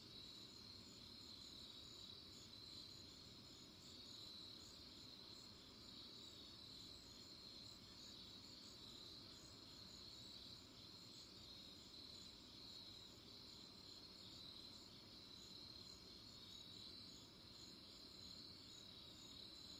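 Faint night chorus of crickets: a steady high trill with a finer, pulsing chirping higher still, over a faint low rumble.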